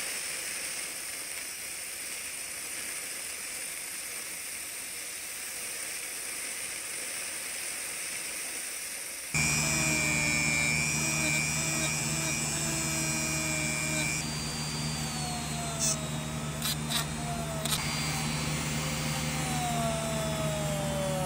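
A steady hiss, then, about nine seconds in, an abrupt switch to a small power tool's motor running with a steady hum and a whine that wavers and slides in pitch, with a few sharp clicks near the end.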